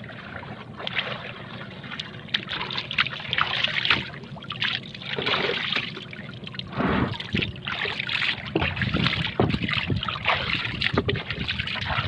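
Water splashing and trickling aboard a small fishing boat, with irregular knocks as fish are handled in a tub, over a steady low hum.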